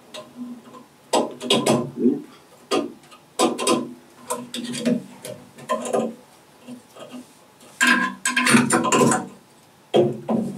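Serving thread being wound and tugged around a bowstring stretched on a string-making jig: irregular scraping and rubbing handling sounds, each with a short low ring from the taut string.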